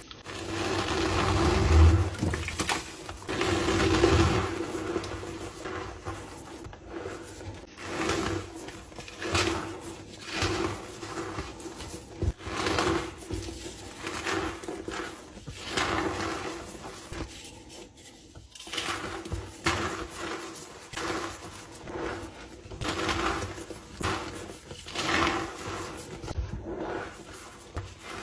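Blocks of dyed gym chalk being crushed and crumbling, a crunchy, dusty crunch repeated about once a second, the loudest crunches in the first few seconds.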